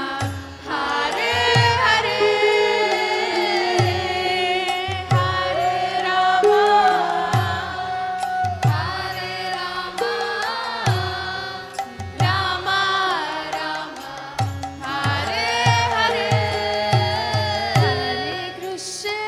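Kirtan: voices singing a devotional chant over a sustained harmonium, with regular hand-drum strokes.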